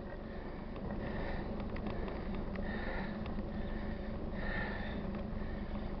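A cyclist breathing hard while pedalling up a climb, a breath about every second and a half, over a steady low rumble.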